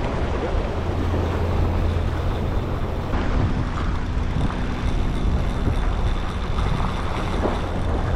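Wind buffeting the microphone over waves washing against the jetty rocks, a steady rumbling hiss.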